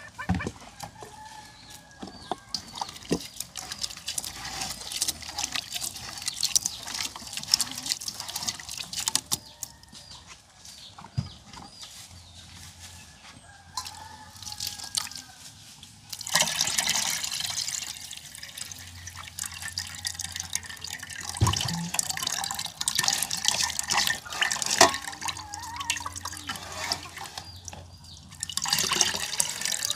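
Coconut milk dripping and splashing into a bowl as grated coconut is squeezed by hand, with many small wet splashes. The splashing gets louder and denser about halfway through.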